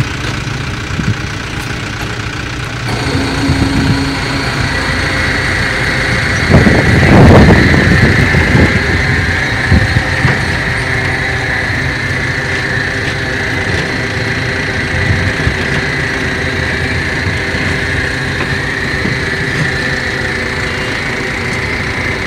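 Car-carrier truck engine running steadily. A steady high whine joins it about five seconds in, and a loud surge of noise comes about seven seconds in.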